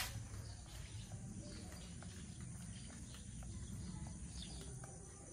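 Faint outdoor ambience: a low steady rumble with scattered soft ticks and short faint high chirps, and one sharp click right at the start.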